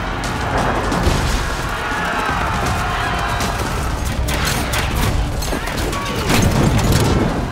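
Film battle-scene soundtrack: score music mixed with the noise of a large fight, with a run of sharp crashes and bangs in the second half.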